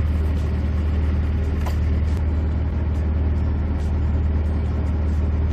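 An engine idling steadily, a low even drone, with a few faint clicks and knocks over it.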